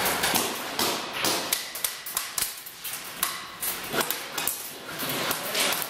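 Airsoft guns firing a string of sharp, irregular single shots, about two or three a second.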